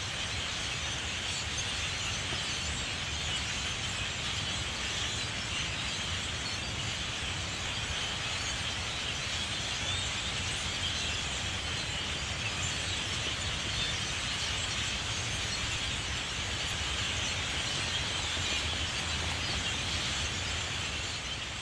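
A dense chorus of many birds calling at once, blending into a steady wash of sound with no single call standing out.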